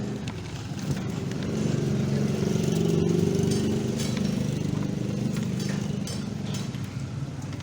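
An engine running steadily, growing louder between about two and four seconds in, then easing off.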